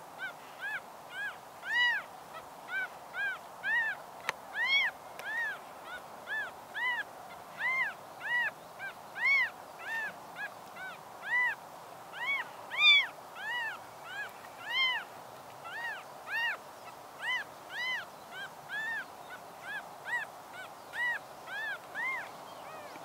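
Newborn kitten mewing over and over: short, high calls about two a second, each rising and then falling in pitch.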